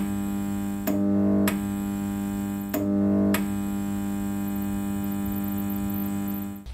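Intro theme music of sustained chords: four new chords struck in the first few seconds, then one long held chord that cuts off sharply near the end.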